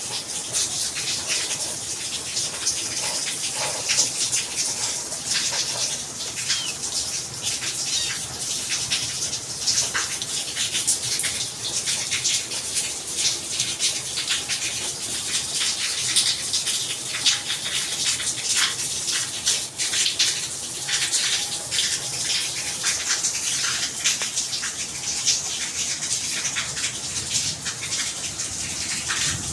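Rain falling steadily: a dense hiss of many separate drops and splashes.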